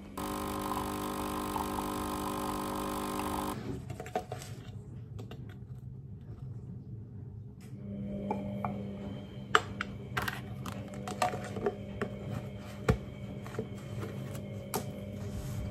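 A steady drone fills the first three or so seconds and cuts off abruptly. Later, over a low hum, a plastic measuring scoop and the lid of a powdered-coffee can are handled: scattered light taps and clicks as powder is scooped into a ceramic mug and the lid is pressed back on.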